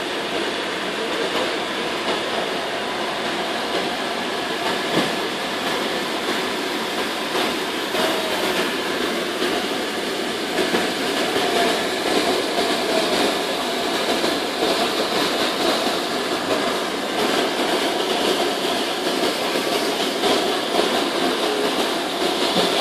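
Single-disc rotary floor machine running steadily on carpet, its motor and spinning pad giving a constant mechanical hum and rush.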